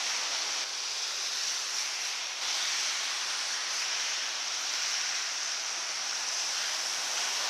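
Steady hiss of a rainy city street: rain and tyres on wet road blend into an even wash with no separate events.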